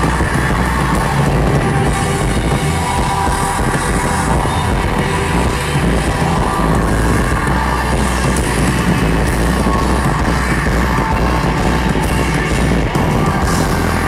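Live rock band playing at full volume: electric guitar over bass and drums, in the song's final bars.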